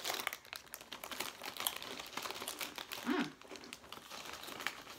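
Plastic snack-chip bag crinkling and rustling as a hand reaches in for chips, with crunching from thick, crunchy cheese and onion chips being chewed.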